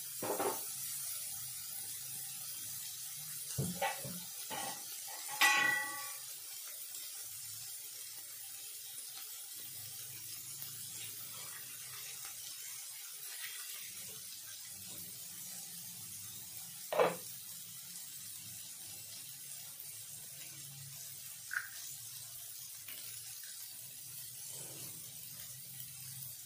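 Diced vegetables and peanuts softly sizzling in oil in a kadai on the stove, a steady faint hiss. A ringing metal clink of a utensil on the pan comes about five seconds in, with a few short knocks later.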